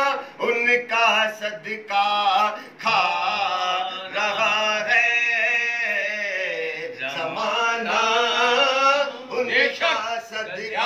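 A man singing a naat, a devotional Urdu poem in praise of the Prophet, in a drawn-out style. His voice wavers and ornaments the notes, with one long held line in the middle.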